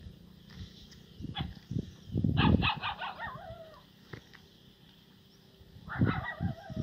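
An animal calling twice, about two and six seconds in; each call is a quick run of sharp notes that slides down in pitch, with a low rumble underneath.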